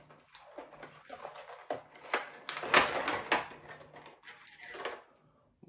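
A cardboard Funko Pop box and its plastic insert being handled as the figure is slid out: irregular crinkling, rustling and clicking, busiest and loudest a little past halfway through.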